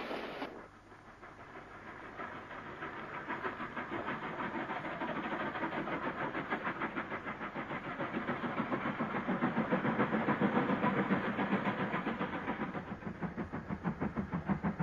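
Steam locomotive working hard, with rapid, even exhaust beats several times a second and a steam hiss, growing louder as it draws closer. About half a second in, the rolling noise of passing coaches cuts off abruptly.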